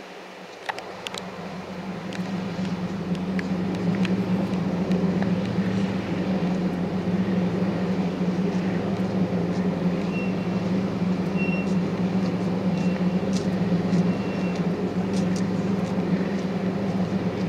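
Loading machinery's engine running steadily with a low hum that builds over the first few seconds, while a deck crane hoists a net of bonito. Scattered sharp metallic clicks, and a few short high beeps around the middle.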